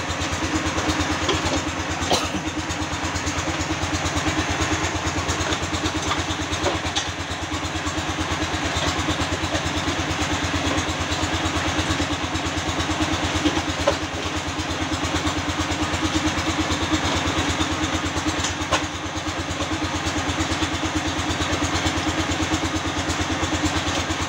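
Concrete pan mixer running steadily with an even, rapid beat from its drive motor as it churns a damp cement, sand and crushed-stone-waste mix for concrete blocks, with an occasional sharp knock.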